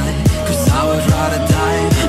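Background music with a heavy beat: deep bass hits that drop in pitch, a little more than two a second, over a held bass line and a melody.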